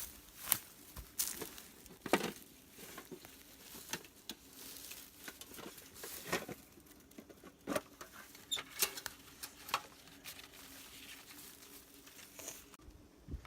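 Faint light clicks and taps at irregular intervals, a few louder ones among them, over a faint low hum.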